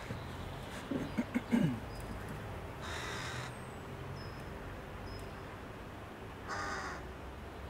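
Crow cawing twice: a short call about three seconds in and another near the end. A few short, low sounds come about a second in, louder than the calls.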